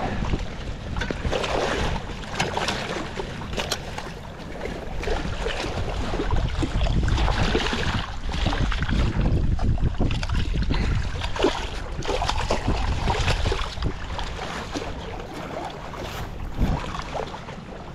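Wind buffeting the microphone and small waves washing against shoreline rocks, with scattered short splashes and knocks throughout. It is a little quieter around four seconds in and again near the end.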